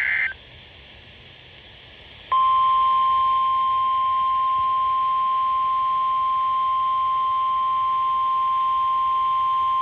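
NOAA Weather Radio alert audio: the last fraction of a SAME digital data burst, a couple of seconds of radio hiss, then the 1050 Hz warning alarm tone, a single steady tone starting about two seconds in and holding. The tone marks the start of a new warning broadcast.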